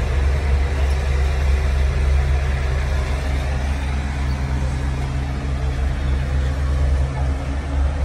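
A steady low mechanical hum with an even rumble underneath, holding at one level throughout.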